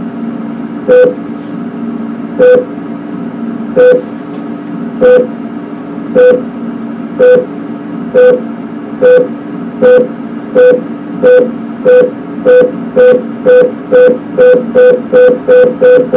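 Driving-simulator pre-alert: short electronic beeps of a single mid-pitched tone that come closer and closer together, from about one every second and a half to more than two a second, like a rear parking alert. The speeding-up signals that the automated car will soon hand control back to the driver. A steady low hum from the simulated car runs underneath.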